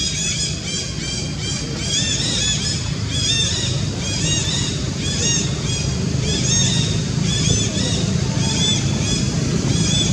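Rapid series of short, high-pitched arching chirp calls, several a second, over a steady low rumble.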